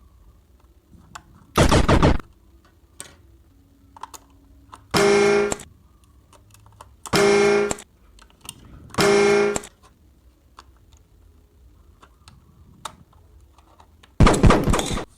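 Short electronic sound effects: three identical pitched tones of about half a second each, about two seconds apart, between a louder noisy burst early and another near the end, with scattered small clicks in between.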